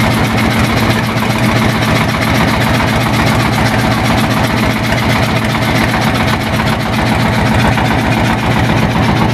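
A small motor fishing boat's engine running steadily under way: a loud, even drone with a fast, regular throb.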